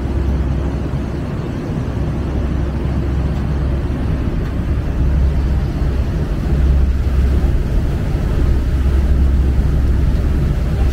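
Tourist river boat's engine running under way with a steady low rumble, heard from the open upper deck with wind rushing over the microphone.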